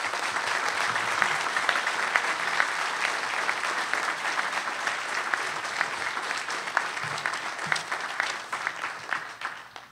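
Audience applauding: a dense, steady patter of many hands clapping that fades out near the end.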